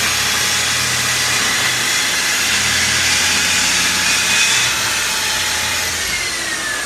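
Festool track saw with a ripping blade cutting lengthwise through a 2x4 along its guide rail, its motor and blade giving a loud steady whine. About six seconds in the cut ends and the blade winds down with a falling whine.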